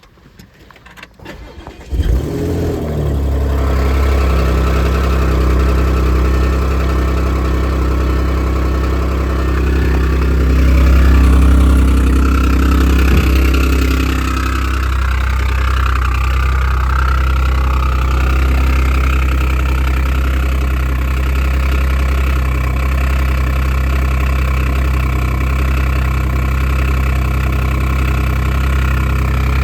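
A 2014 Audi S5's supercharged 3.0 V6 cranks and starts about two seconds in, then runs at a raised cold-start idle. The idle swells a little near the middle and then settles lower. The noisy startup comes from an exhaust leak between the exhaust manifold and the cylinder head, which quiets once the engine warms.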